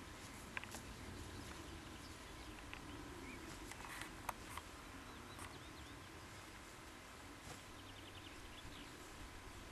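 Faint outdoor field ambience: a steady low rumble, with a few faint clicks and a few faint bird chirps.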